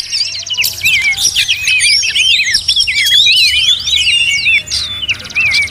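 Several songbirds singing at once: a dense mix of whistled chirps and rapid trilled phrases.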